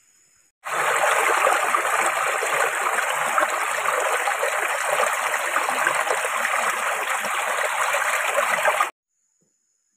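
Shallow stream flowing over rocks, a steady rushing and gurgling of water. It cuts in suddenly just under a second in and cuts off abruptly near the end.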